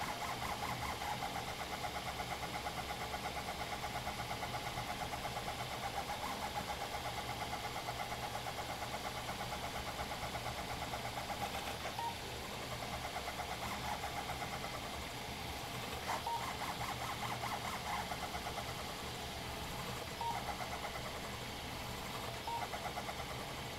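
Stepper motors of a Printrbot 3D printer converted to a Hypercube CoreXY frame, buzzing and whining as the print head darts back and forth at very high speed over the last layer. The sound has a fast rattling flutter, and brief higher-pitched chirps come now and then.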